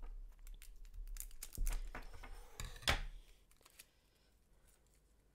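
Adhesive tape being handled and peeled: a run of small crackles and clicks with one sharper click about three seconds in, then it goes quiet.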